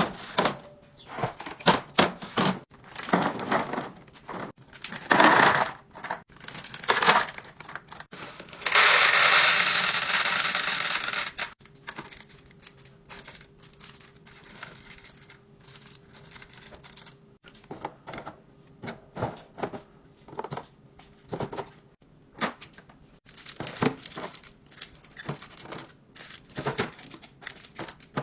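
Groceries being unpacked and stocked into a refrigerator: plastic packaging crinkling and tearing, containers clicking and knocking as they are set down. About nine seconds in, a loud rushing hiss lasts nearly three seconds.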